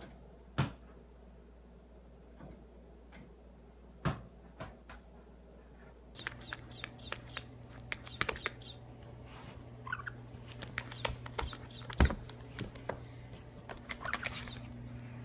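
A few isolated sharp knocks, then a run of quick, irregular taps and clicks as a cat paws at a tablet's touchscreen game, over a steady low hum.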